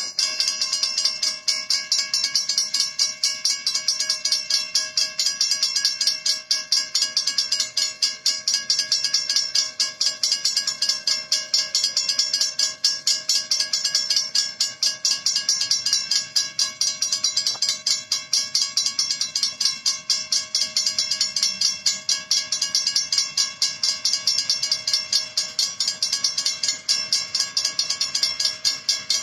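Two WCH mechanical railroad crossing bells ringing with rapid, continuous strokes, starting abruptly as the crossing signals activate, the warning of an approaching train.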